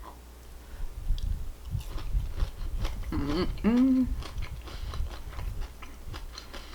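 Close-up chewing of fried potato, with irregular soft mouth clicks and crunches, and a short voiced hum with a bending pitch about three seconds in.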